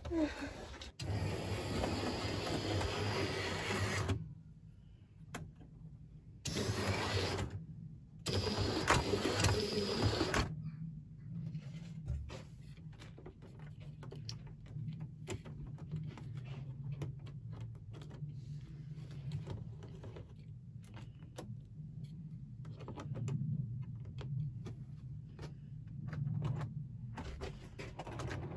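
Model railway locomotive's small electric motor running on the track, a steady low hum with scattered light clicks. Louder stretches of noise come and go in the first ten seconds.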